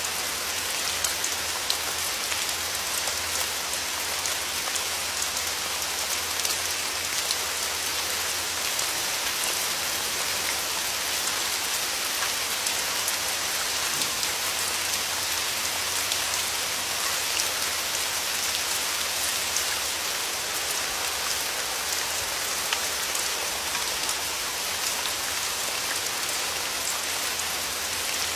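Steady rain falling, an even hiss with the patter of many small drops striking a surface.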